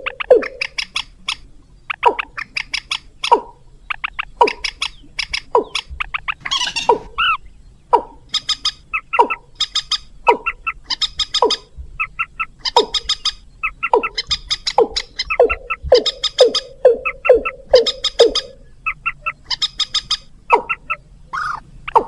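Bird-lure recording of rail calls, moorhen and watercock: short, loud calls repeated one or two a second, many sliding down in pitch, mixed with higher clipped notes.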